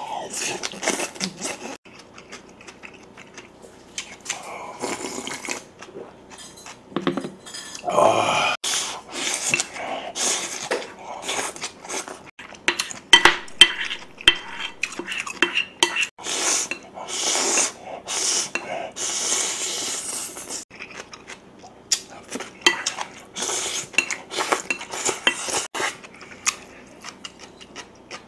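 A wooden spoon and chopsticks scraping and knocking against a ceramic plate as the last rice is gathered up, in many short, irregular clinks and scrapes, with chewing in between.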